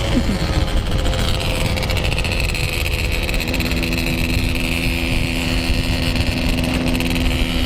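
Yamaha RX-King's two-stroke single with a packing power exhaust, ridden at part throttle: the engine note falls over the first couple of seconds, then holds steady, over wind noise on the microphone.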